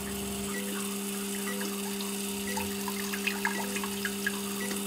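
TOTO Washlet shower toilet nozzle spraying a jet of water up against a clear dome: a steady hiss of spray with scattered drips, over a steady low hum.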